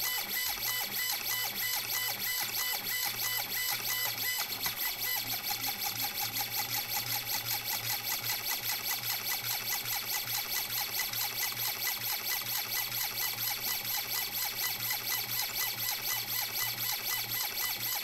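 Stepper motor of a robotic safe auto-dialer turning a safe's combination dial, working through combinations one after another. It gives a steady whine with a fast, even pulsing.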